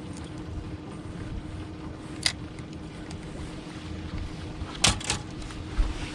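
Steady low rumble of a fishing boat on the water with a faint steady hum underneath, broken by sharp clicks and knocks of gear being handled: one about two seconds in, two close together near five seconds, then a low thump.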